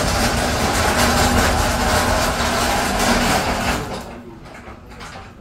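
Loud, steady machinery noise with a low hum, which falls away sharply about four seconds in.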